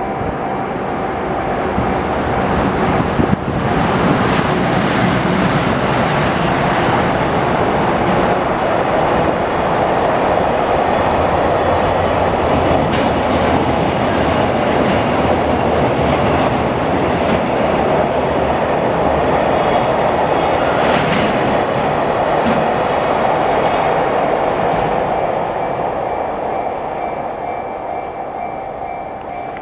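A JR electric train passes over the level crossing, its wheels clattering over the rail joints. The sound builds about three seconds in, holds, and fades near the end. Under it the crossing's electronic warning bell, the slightly high-pitched JR standard tone, keeps ringing.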